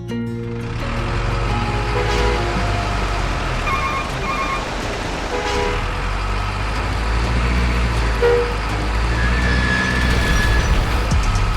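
Truck engine running with a steady, noisy rumble. Short paired beeps like a reversing alarm come about four seconds in, and a brief tone sounds near the end.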